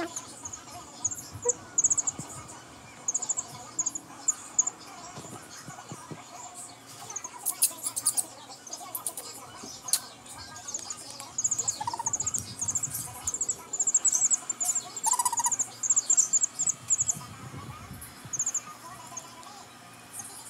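A week-old chick peeping: short, very high chirps in quick runs of three to six, repeated over and over, thicker in the second half.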